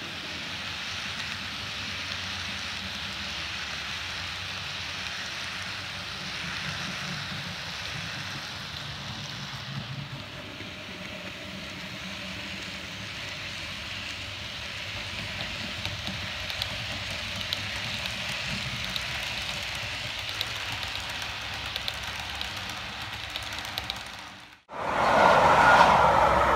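OO gauge model train running past on its track: the Bachmann Class 90 locomotive and container wagons give a steady rolling hiss with light clicks from the wheels. Near the end the sound cuts out suddenly and a louder swelling whoosh takes over.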